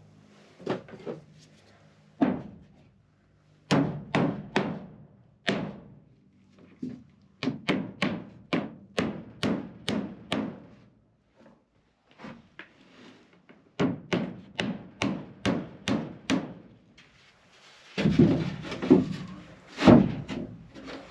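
Hand hammer driving nails through rough-sawn wooden boards into the wall studs, tacking up siding. The blows come in runs of several, about two a second, with short pauses between nails, and a scraping noise between blows near the end.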